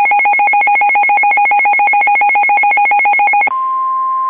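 Weather radio alert: rapid electronic beeping in two pitches that switches, about three and a half seconds in, to one steady tone. The steady tone is the NOAA Weather Radio warning alarm tone, which signals that a warning broadcast is about to follow.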